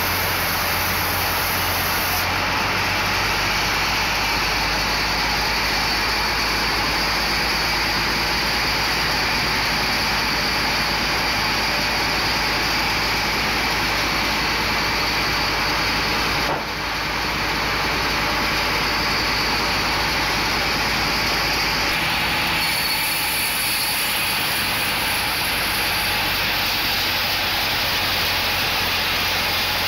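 Sawmill band saw running and cutting through a teak log: a loud, steady rush of sawing noise over a low motor hum, with a brief dip about 16 seconds in and a change in tone about 22 seconds in.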